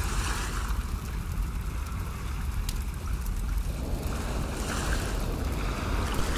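Wind buffeting the microphone with a steady low rumble, over the wash of surf.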